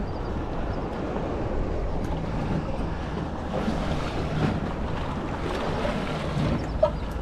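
Wind on the microphone and ocean water washing around a small fishing boat, a steady rushing noise, with a short knock near the end.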